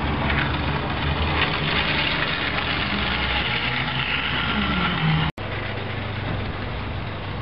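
Model locomotive running on garden railway track: a steady mechanical hum and rumble, its pitch falling just before a sudden brief dropout about five seconds in, after which a steadier low hum carries on.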